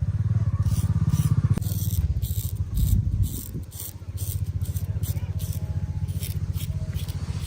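Barber cutting hair: quick, crisp, evenly repeated snips or strokes, about three a second, over a loud low steady hum that drops out for a couple of seconds partway through.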